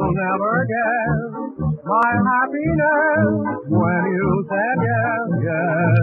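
Background music: a wavering lead melody over a steady bass beat.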